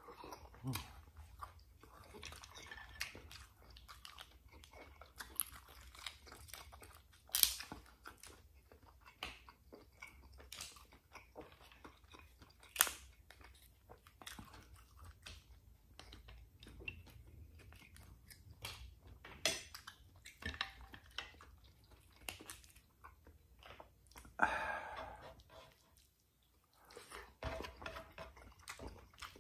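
Close-miked chewing and mouth sounds of a person eating mussels, milkfish and rice by hand. Several sharp clicks are scattered through, and there is a short noisy burst near the end.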